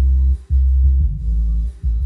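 Bass-heavy electronic music played through an MTH-30 tapped-horn subwoofer with a 12-inch driver: loud, sustained deep bass notes, broken off briefly about half a second in and again near the end.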